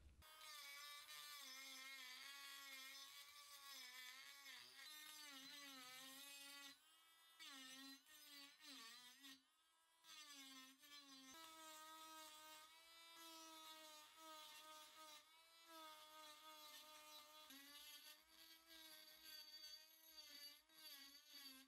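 Handheld rotary tool with an abrasive point grinding a metal part, its small motor whining with a pitch that wavers as it is pressed to the metal and briefly eases off twice near the middle.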